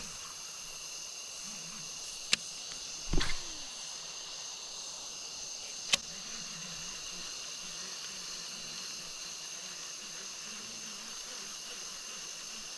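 Steady chorus of evening insects, crickets or katydids, holding two constant high pitches. Two sharp clicks, about two and six seconds in, and a short thump between them stand out.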